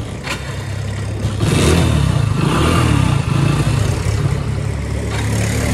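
Motorcycle engine running, warmed up after a cold start on choke; the revs rise about a second and a half in and stay up.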